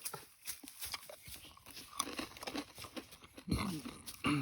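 Close-up eating sounds: chewing and crunching on crisp food, with many small crackles and two short nasal hums near the end.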